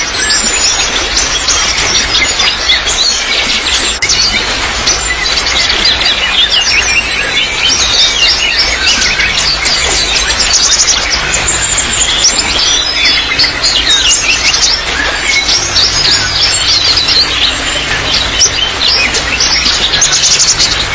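Many small birds chirping and trilling over and under one another, over a steady trickle of running water.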